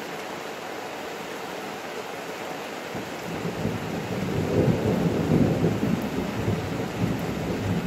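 Thunder rumbling over steady rain. The rain hisses alone at first; about three seconds in a low rumble of thunder sets in, grows loudest around the middle and keeps going.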